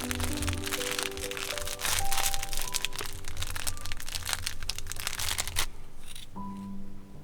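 Gentle background music with a dense crunching, crackling sound under it that stops about five and a half seconds in.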